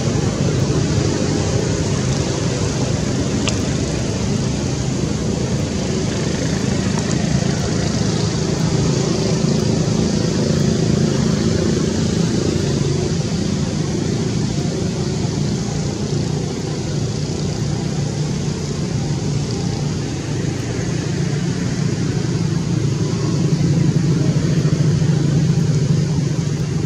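Steady low rumble of motor traffic, unbroken, with a continuous high hiss over it.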